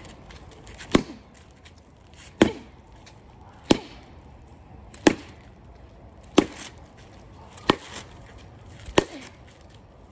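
A baseball bat striking a pumpkin on the ground: seven sharp, loud whacks, evenly spaced a little over a second apart, as the pumpkin cracks open.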